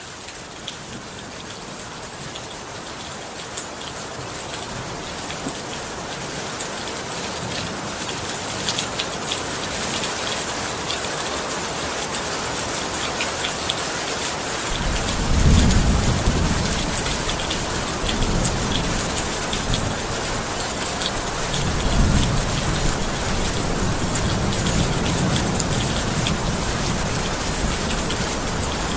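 Steady rain falling, fading in from quiet, with two low rolls of thunder, one about halfway through and one about three-quarters of the way in.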